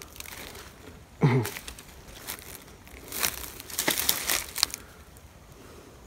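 Footsteps through dry brush and fallen branches: dry grass and twigs crackling and crunching underfoot, with a few sharp snaps scattered through the middle.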